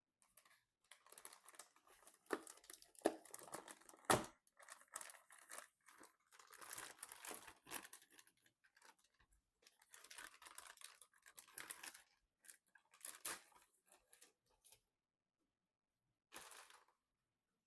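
Packaging being handled and opened: plastic and cardboard crinkling and tearing in irregular bursts, with a few sharp clicks, the loudest about four seconds in.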